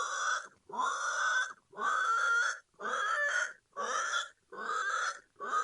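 Domestic pig squealing and oinking over and over, about seven calls of under a second each with short breaks between them.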